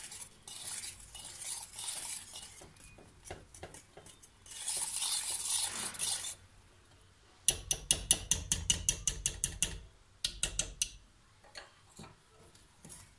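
A wire whisk stirring thick pudding in a stainless steel pot: scratchy swishing and scraping through the cream. Past the middle this turns to fast beating, the whisk clicking against the pot's side several times a second for a few seconds.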